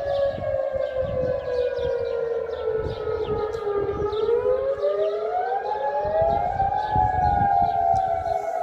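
Civil defense sirens wailing: a sustained tone slides slowly down in pitch, then climbs back up about four to six seconds in, with two wails sounding slightly out of step.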